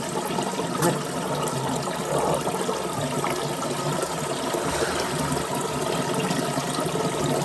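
Water running steadily from a sink tap, splashing over hands being washed with soap.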